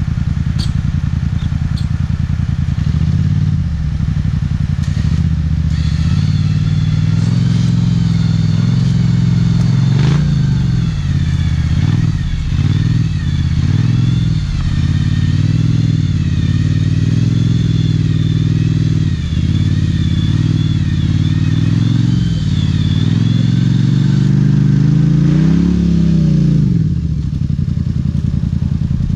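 ATV (quad) engine running and revving, its pitch rising and falling several times, with a high wavering whine through the middle stretch.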